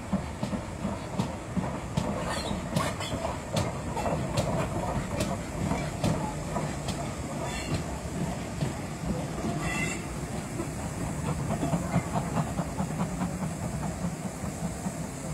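Steam tank locomotive and its coaches passing close by, the wheels clicking and clattering over the rail joints over a steady rumble.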